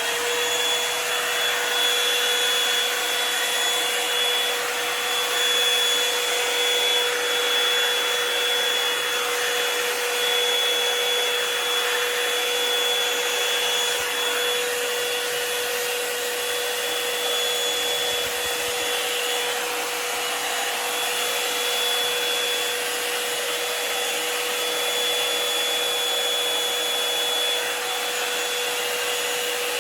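Revlon Salon One Step hair dryer brush running steadily, a loud, even blowing with a steady hum and a high whine over it.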